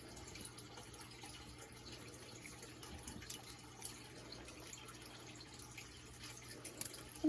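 Faint scratching of a pencil drawing on paper, a run of short light ticks over a low steady hum.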